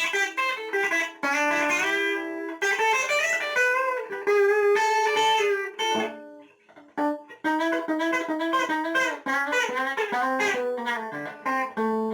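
Electric guitar on its bridge pickup, played through a compressor pedal with the tone turned down to darken it and make it more punchy, playing quick single-note lead phrases with a short pause a little past halfway.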